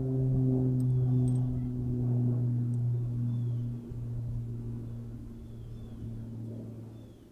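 A low, steady droning tone with overtones, slowly fading over several seconds and dying away near the end. Faint high chirps repeat over it about every second and a half.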